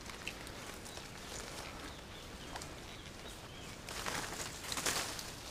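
Faint riverside ambience with a few small ticks, then about four seconds in a louder burst of rustling from leaves and branches, lasting about a second.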